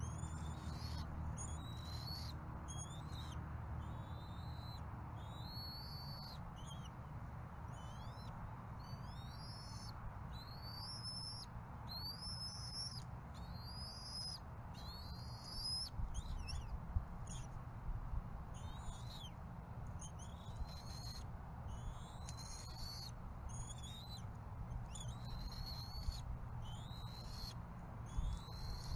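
Bald eaglet giving high-pitched begging calls while being fed, a short sweeping chirp about once a second, over a low steady rumble.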